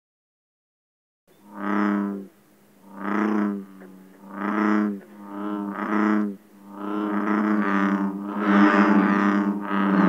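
American bullfrog calling: deep droning calls about a second long, starting about a second in and repeating roughly every second and a half. In the last few seconds the calls overlap into a nearly unbroken chorus.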